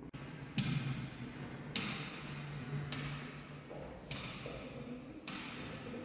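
Slow, quiet background music: a ringing, chime-like strike about once every second and a bit, evenly spaced, over faint low held tones.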